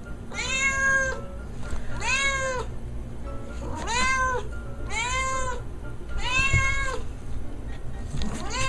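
Calico cat meowing insistently: six long meows, about one every second and a half, each rising then falling in pitch; the last one begins near the end.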